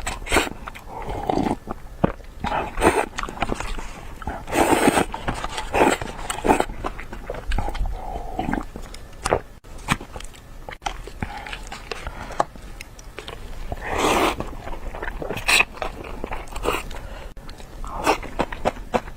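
Close-miked eating sounds: a person biting and chewing food, with irregular wet clicks and short noisy bursts.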